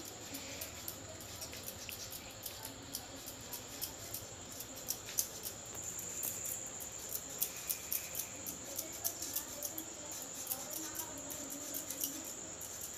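Potatoes being cut on a boti, a floor-mounted curved blade, making a run of small, irregular crisp cutting clicks. A steady high-pitched trill sounds behind them.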